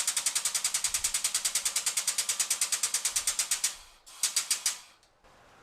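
Rapid, even mechanical clicking from a shop press, about a dozen clicks a second for nearly four seconds, then a short second run of clicks, as a socket head cap screw is pressed slowly into a hand knob.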